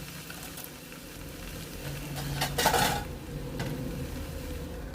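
A spatula stirring sliced bell peppers and onion in a hot pan, the vegetables sizzling steadily, with a louder scrape and clatter of the spatula against the pan a little over halfway through.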